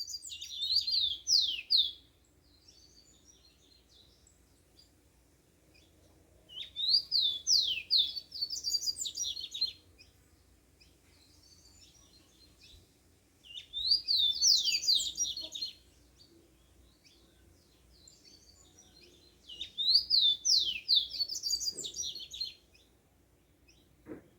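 A papa-capim seedeater singing: four quick twittering phrases of slurred, sweeping notes, each lasting two to three seconds, repeated about every six seconds.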